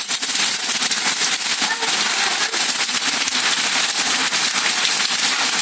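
Hail and heavy rain pelting down, a dense steady clatter of countless small sharp impacts on the ground and a car.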